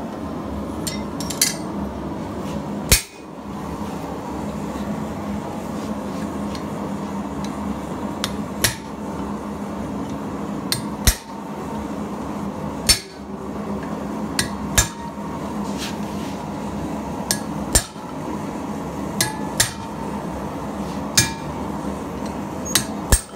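Hammer blows on a steel punch driven into red-hot steel on an anvil: about a dozen single sharp strikes, spaced irregularly a second or more apart, with a steady rushing noise underneath.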